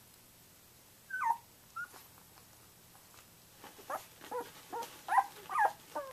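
Twelve-day-old Samoyed puppies squeaking and whimpering in short, high, sliding squeals. Two come about a second in, then a quicker run of about seven in the last two and a half seconds.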